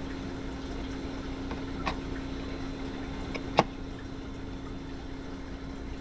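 Steady low hum with a hiss, and a few light clicks of a screwdriver working on the belt guard bolt of an air horn compressor as the guard is fastened on. The sharpest click comes about three and a half seconds in.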